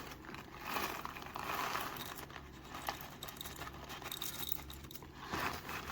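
Whole coffee beans being poured into the hopper of a hand coffee grinder, a soft rustling patter of beans against the metal.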